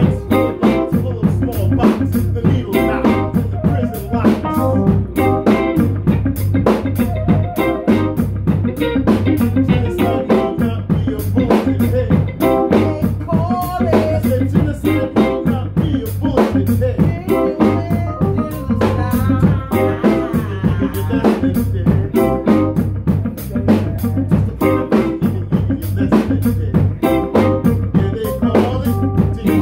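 A live band plays a jazz and hip-hop groove, with a busy drum-kit beat, a steady bass line and guitar and keyboard parts over it. It is recorded on a phone in the room with the band.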